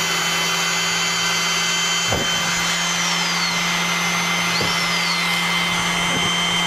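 Corded electric drill running, its bit boring into hard OSB board, over the steady drone of an oscillating multi-tool and an air compressor left running. The combined machine noise holds at an even level, with a faint knock or two.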